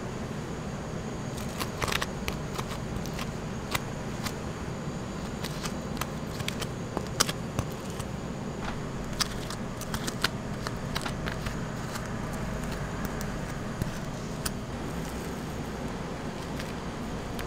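Steady background hum with scattered light clicks and clinks: metal spoon and spatula tapping against plastic tubs and a steel tray as Nutella and whipped cream are spread on waffles.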